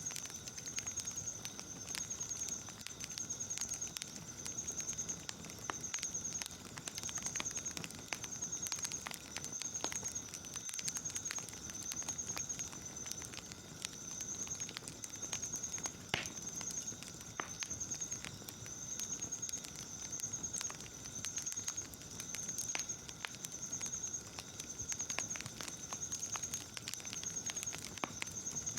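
Wood fire crackling with irregular sharp pops, under a layer of night insects chirping in a regular pulsed trill about every second and a half, with a faint steady high drone.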